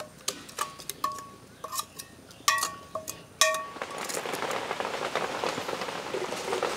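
A steel spoon clinks and scrapes against metal cooking vessels about eight times, each strike ringing briefly, as the ground masala paste is scraped into the curry pot and stirred in. About four seconds in this gives way to a steady crackling bubble as the kutaja-bean curry (menaskai) comes to a boil.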